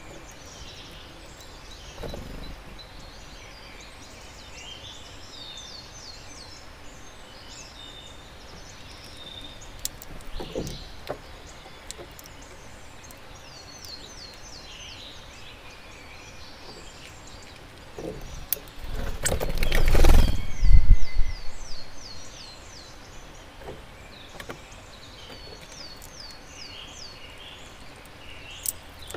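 Small songbirds calling at a garden feeder, with a short high song of quick falling notes heard three times. About two-thirds of the way through, a loud rush of low noise lasts a couple of seconds.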